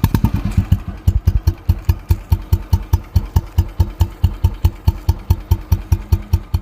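Royal Enfield Bullet Machismo 350's single-cylinder four-stroke engine running with a steady, even beat of exhaust pulses, about six a second. The pulses quicken briefly at the very start, as from a short blip of the throttle, then settle back to idle.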